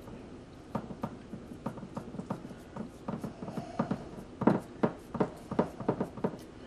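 Hands pressing and patting a raw ground beef and pork mixture into a glass loaf pan: a run of short, soft taps and squishes, a few a second, loudest about halfway through.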